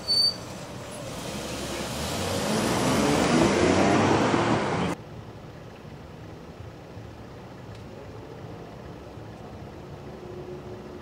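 A road vehicle passing close, growing louder over about four seconds and cut off suddenly about five seconds in. A short high beep sounds at the very start.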